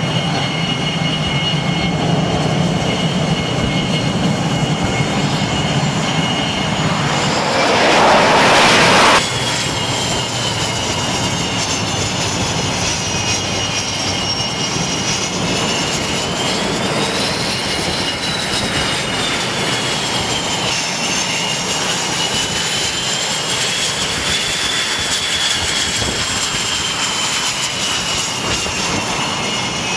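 Jet engines running on an aircraft carrier flight deck. A louder rushing blast comes about seven seconds in and stops abruptly two seconds later. After it, the high whine of an F/A-18's engines rises and falls with throttle as it moves on the deck.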